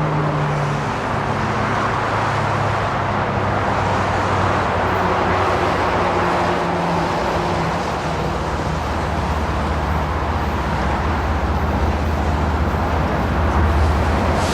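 Approaching freight train led by two diesel locomotives: a steady engine drone over a wide rushing noise, growing a little louder near the end.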